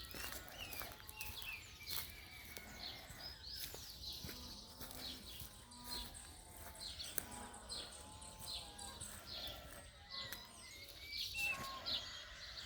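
Several birds chirping and calling, with many short high chirps one after another and a few lower calls, and scattered sharp clicks.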